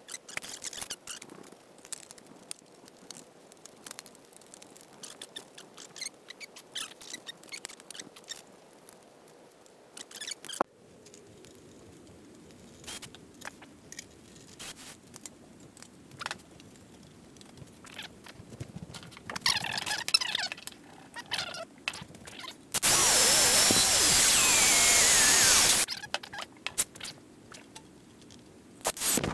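Clicks and rattles of thin aluminium airbox sheet being handled and fitted, then, about three-quarters of the way through, a DeWalt gyroscopic cordless screwdriver runs for about three seconds, its whine shifting in pitch.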